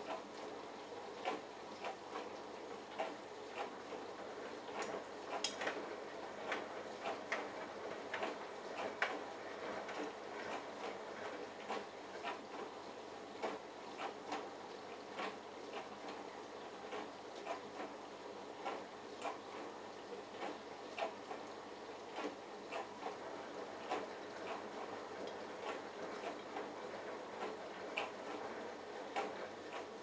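Bosch Logixx WAS32461 front-loading washing machine tumbling a wet load in its drum during the prewash: a steady churning of water and motor, with irregular small clicks and knocks several times a second as the load turns.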